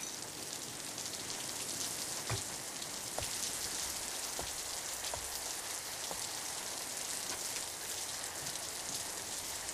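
Steady rain falling, with scattered individual drops standing out as small ticks.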